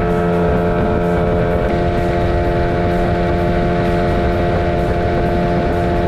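Boat engine running steadily at a constant speed, with an even drone.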